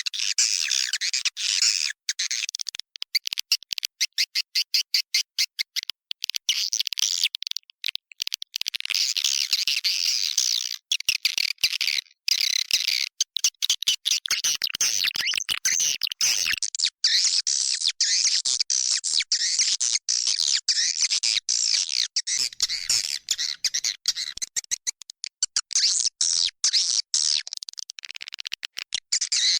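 Swiftlet lure call: a recording of a colony of edible-nest swiftlets twittering and chirping inside a nest house, used to draw wild swiftlets into a new house. The high, dense chirping is chopped by many short gaps.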